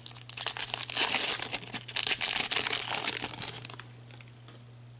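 Trading card pack's foil wrapper being torn open and crinkled by gloved hands, a dense crackle that stops a little under four seconds in.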